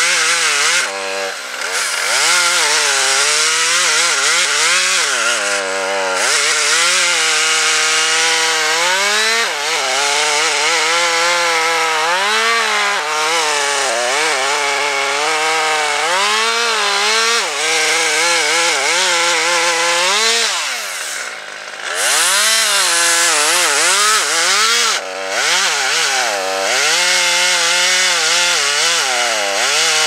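Husqvarna T540 XP two-stroke top-handle chainsaw cutting into maple wood, its engine pitch sagging under load and climbing back again and again as the throttle is worked. It lets off briefly a few times, most noticeably near the middle and in the later part.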